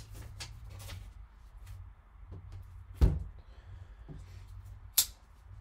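Gloved hands handling a sealed cardboard trading-card box, with light rubbing and taps. A knock with a low thump about three seconds in, as the box is set down on the table, and a sharp click about five seconds in.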